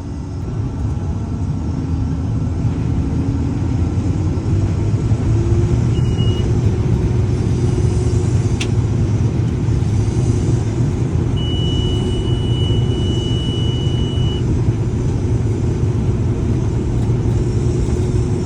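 Combine harvester's diesel engine running under load, a heavy steady rumble that speeds up over the first few seconds and then holds. A short high beep comes about six seconds in, a sharp click a few seconds later, and a thin high tone sounds for about three seconds past the middle.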